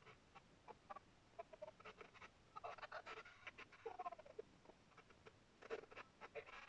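Faint, broken-up television sound: short crackles and clipped scraps of voice cutting in and out, with no steady speech or music.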